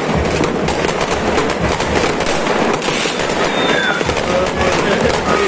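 Aerial fireworks bursting and crackling without pause, many sharp pops overlapping into a dense racket, with a few short whistling glides.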